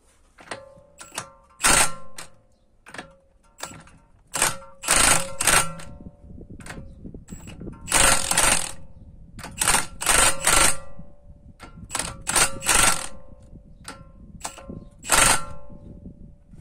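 Milwaukee M18 Fuel cordless impact wrench hammering on a MacPherson strut's top nut in a string of short bursts, about a second apart, with a steady motor whine in each and a few longer runs. It is cracking loose a nut that can be very hard to undo.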